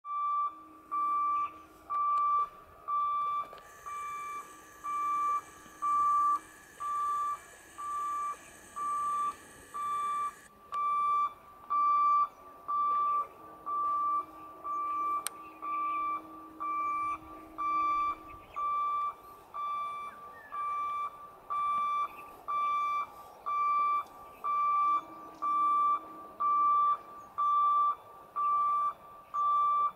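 Level-crossing warning alarm beeping: one steady high tone repeating about once a second, each beep about half a second long, the signal that the gate is closed for an approaching train.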